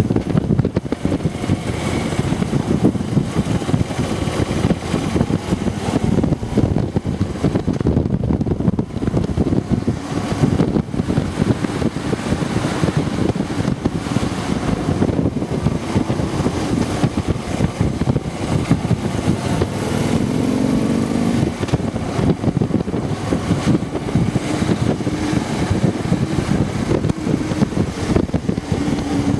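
Harley-Davidson FLHTC Electra Glide Classic's V-twin engine running steadily while the motorcycle is ridden.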